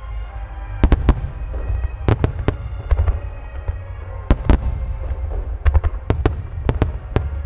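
Starmine fireworks barrage: shells bursting in quick, irregular succession, about eighteen sharp bangs in all, over a continuous low rumble. Music plays underneath.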